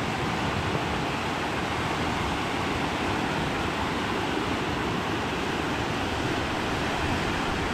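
Steady rush of fast water pouring through a rapid on a mountain river, an even roar with no engine in it.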